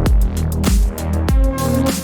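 Electronic background music with a heavy bass beat.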